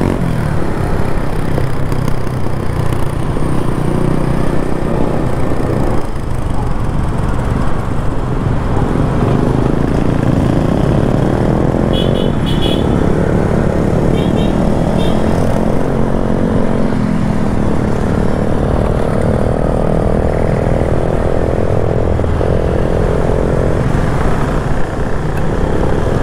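Motorcycle engine running under way with steady wind and road noise on the microphone; the engine note shifts in pitch several times. A few short high beeps come around the middle.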